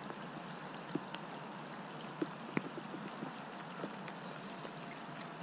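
Steady rush of a high, swollen river flowing past the bank, with scattered small clicks and ticks.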